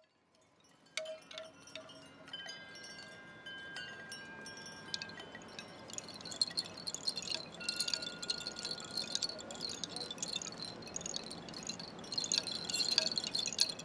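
Wind chimes ringing: many small metallic tones struck at random, each one ringing on. They begin about a second in and grow busier and denser after about six seconds.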